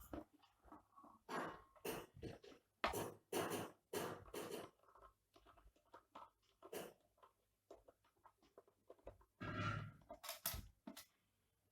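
Irregular clicks, knocks and rustles of hands handling the opened UPS cabinet's parts while freeing the extension cable that holds its battery, with a cluster of louder knocks a couple of seconds in and a longer noisy sound near the end.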